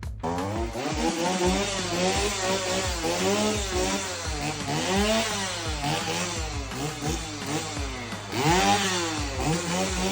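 Chainsaw engine with its bar and chain removed, revved up and back down over and over, roughly once a second.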